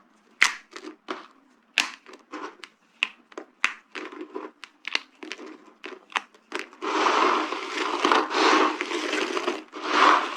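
Dry soap being crushed: a run of sharp cracks and snaps, then from about seven seconds in a continuous dense crunching and crumbling.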